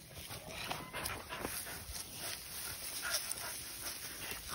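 Beagles whimpering and whining as they hunt nose-down through pine straw and brush for rabbit scent, with light crackling of the undergrowth.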